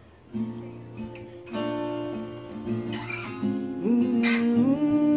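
Acoustic guitar music, plucked and strummed. About four seconds in, a voice starts humming a tune along with it.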